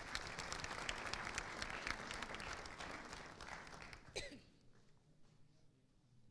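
Audience applauding, the clapping dying away after about four seconds.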